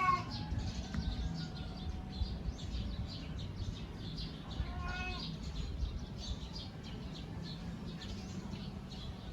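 A cat gives one short meow about halfway through, over faint high chirps and a low steady hum.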